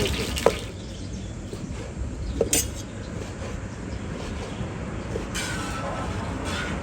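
Kitchen clatter over a steady low rumble: a light click, then a sharp metallic clink about two and a half seconds in, and a hiss that starts a little past halfway.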